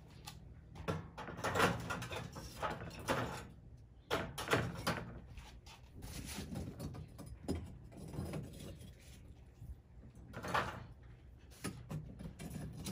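Lumps of wood charcoal being loaded into a small metal box BBQ stove: irregular knocks, clatters and scrapes of charcoal against the metal walls and against other lumps, about a dozen separate hits.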